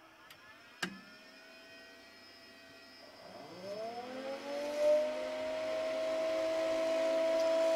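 A sharp click, then the cooling fans of a Telemechanique Altivar 58 variable-frequency drive, just powered from a 3×400 V three-phase supply, spin up. A whine rises in pitch over a couple of seconds and settles into a steady, growing hum with one clear tone.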